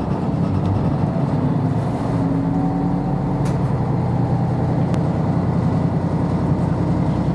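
JR Hokkaido KiHa 54 diesel railcar running, heard from inside the car: a steady low engine and running-gear rumble, with two faint clicks midway.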